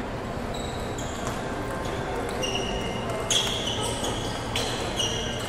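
A table tennis rally: the plastic ball clicks sharply off paddles and the table several times at an irregular pace, each hit with a short, high ring, over background chatter in a large room.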